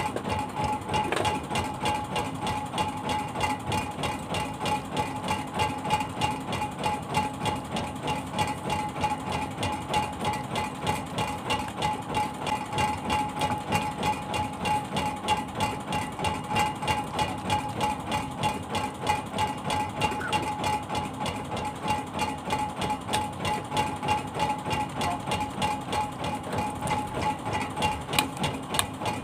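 Small fishing boat's engine idling with a steady, even chugging.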